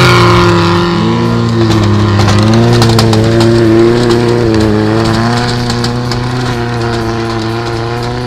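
Off-road 4x4 engines revving hard as the trucks churn through snow and mud, the engine pitch rising and falling. The sound fades gradually over the last few seconds as they pull away.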